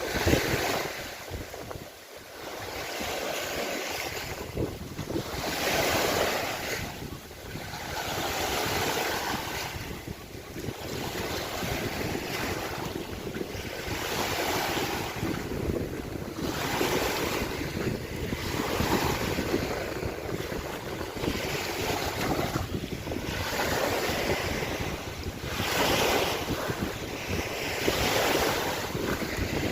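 Lake waves washing against the shore, coming in swells every two to three seconds, with wind rumbling on the microphone.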